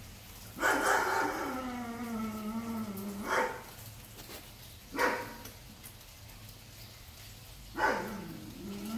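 Big dogs barking: a long drawn-out call sinking slightly in pitch about half a second in, then single sharp barks at about three and a half, five and eight seconds in.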